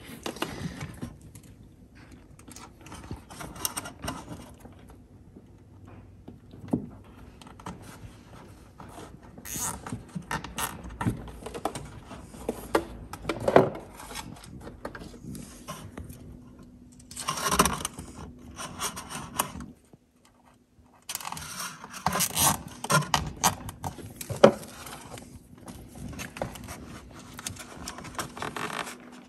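Hands handling electrical cable in a motorhome's plastic toilet-cassette hatch: irregular scraping and rustling with scattered sharp clicks as the cable is fed and fixed along the frame. A brief gap of silence comes about two-thirds of the way through.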